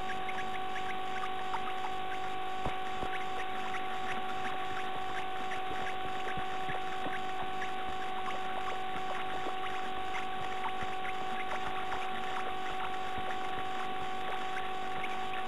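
Steady electrical whine and hiss from a nest-box camera's audio, with faint scattered scratches and ticks from a bird shifting about in the nest over her chicks.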